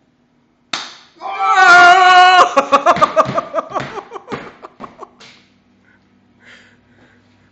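A sharp crack of a BB gun shot at close range, then a loud high-pitched yell of pain held for about a second and a half, breaking into short cries that fade away.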